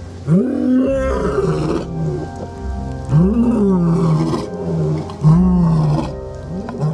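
Male lion roaring: a series of deep calls, each rising then sliding down in pitch, with background music underneath.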